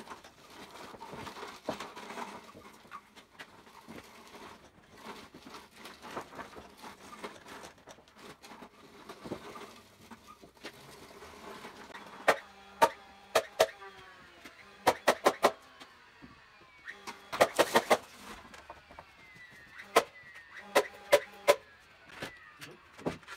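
Framing lumber being handled and set down, then a nail gun driving nails into a 2x6 stud wall frame. Each shot is a sharp crack with a short ring, fired singly and in quick runs of up to about six, from about halfway through.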